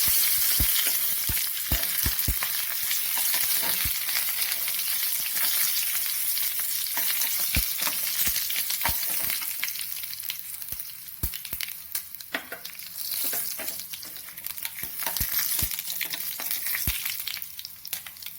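Mustard seeds, dried red chillies and curry leaves sizzling in hot coconut oil in a pan, the tempering for coconut chutney, with the mustard seeds popping in many sharp clicks. The sizzle is loudest at first and dies down toward the end.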